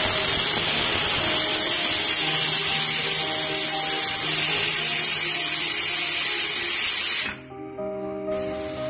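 Pressure cooker's weighted valve venting steam: a loud, steady hiss that cuts off suddenly about seven seconds in, as the weight settles back and the pressure is released.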